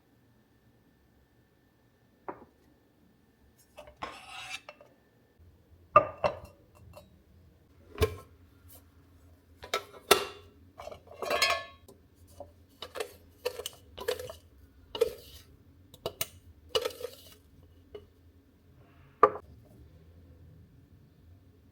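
Dishes and cutlery clinking and knocking in a kitchen, a series of separate sharp clinks with short ringing.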